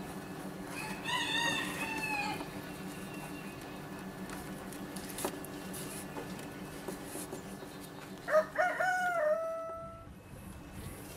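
A rooster crowing twice: a fainter crow about a second in and a louder one about eight seconds in that ends on a long held note.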